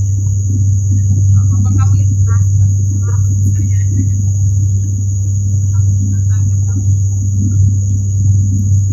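Cabin noise of an ATR 72 turboprop airliner beside the propeller just after takeoff: a loud, steady low propeller drone with a thin, steady high whine over it.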